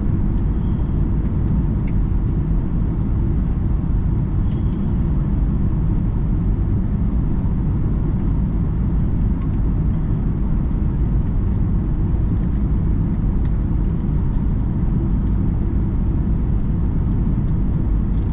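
Steady low rumble inside the cabin of a Boeing 757-200 airliner: engine and airflow noise, even throughout, with a few faint ticks.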